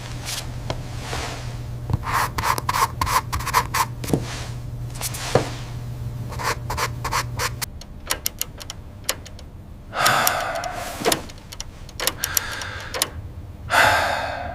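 Rubbing and scraping sounds with scattered sharp clicks, over a low steady hum that stops about halfway through.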